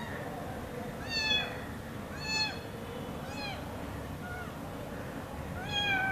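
Young kittens meowing about five times, short calls that rise and fall in pitch, with the last one near the end the longest: motherless kittens begging for milk.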